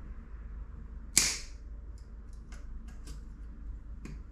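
Pliers working a new steel cotter pin over the foot-peg pin: one sharp metallic snap about a second in, then a few light clicks of tool on metal.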